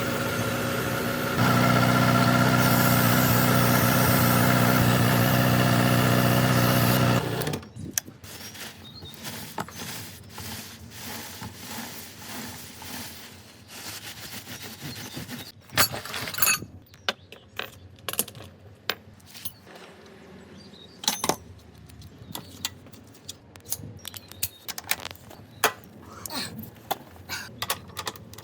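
Motorcycle engine running steadily, a little louder about a second and a half in, then switched off about seven seconds in. Scattered metallic clicks and knocks of hand tools follow.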